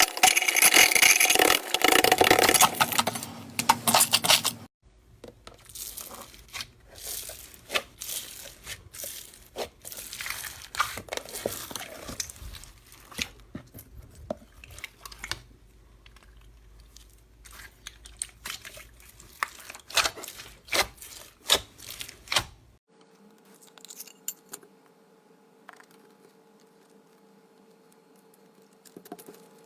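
Hands squeezing and kneading slime, with a dense, loud crackling for the first few seconds, then quieter scattered clicks and pops. After about 23 s only a faint steady hum with an occasional click remains.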